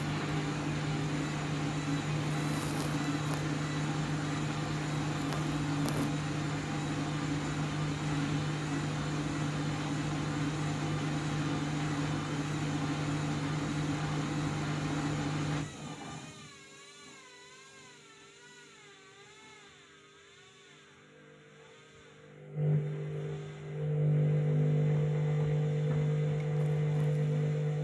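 Washing machine in a spin cycle: a loud, steady hum over a rushing noise, which drops sharply to a quiet wavering whine a little past halfway, then starts again suddenly as a loud steady hum near three-quarters through. The spin is badly unbalanced.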